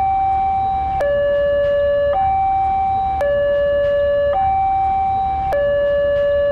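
Two-tone hi-lo siren, switching between a lower and a higher note about once a second, over a low rumble.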